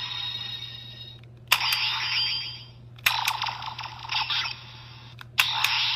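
Power Rangers Super Samurai Black Box toy playing its electronic sound effects through a small, tinny speaker. Each effect starts with a click of the button being pressed: one is already sounding at the start and fades, then new ones begin about a second and a half in, at about three seconds, and near the end. The effects are warbling, chirping tones.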